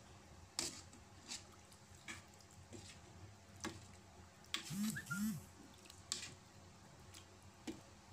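Metal ladle stirring chicken pieces in coconut-milk curry in an aluminium pot: light clinks and scrapes against the pot about once a second. The loudest is a short scraping stir near the middle, with two brief low voice-like sounds.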